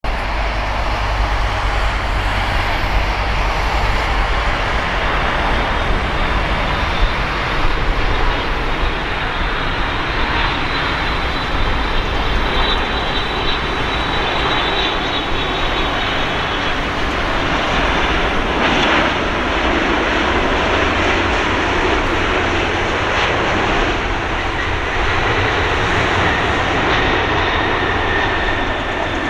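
Boeing 787-8 airliner's GEnx turbofan engines on landing approach: a steady jet roar with a high fan whine strongest as it passes, about ten to sixteen seconds in. Near the end a fainter whine falls slightly as the aircraft rolls out on the runway.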